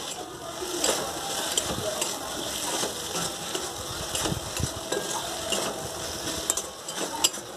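Metal spatula stirring fried potato and aubergine pieces through a sizzling masala in a kadai, with scattered scrapes and taps of the spatula against the pan.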